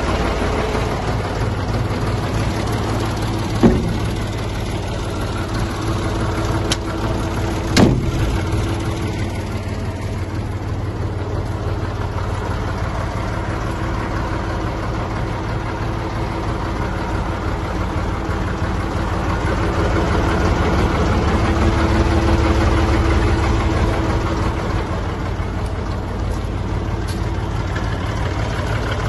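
International McCormick 523 tractor engine idling steadily, with two sharp knocks about four and eight seconds in. It grows slightly louder about two-thirds of the way through.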